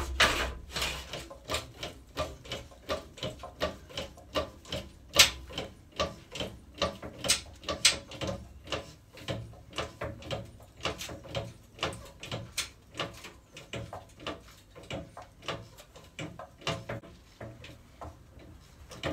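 Hydraulic scissor pit jack being worked up under the car, with a regular click about two to three times a second from each pump stroke as it rises to take the car's weight on the body.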